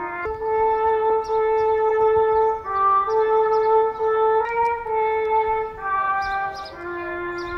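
Slow brass music: a melody of long, held notes that change every second or two.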